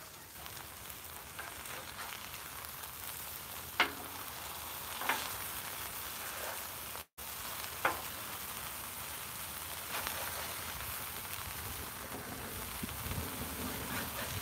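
Burger patties sizzling on a Blackstone flat-top griddle, a steady hiss broken by a few short sharp clicks. The sound drops out for an instant about seven seconds in.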